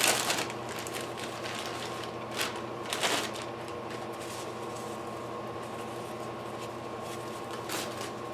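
Handling noises: a few brief rustles and knocks as small parts and packaging are picked up and turned over, over a steady low hum.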